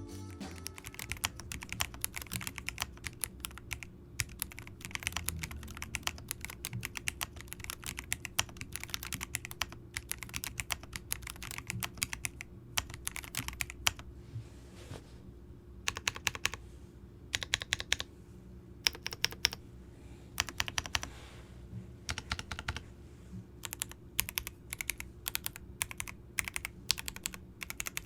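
Typing on an Alice-layout, gasket-mount mechanical keyboard as a typing-sound demonstration. Quick runs of keystrokes come in bursts, with brief pauses between runs.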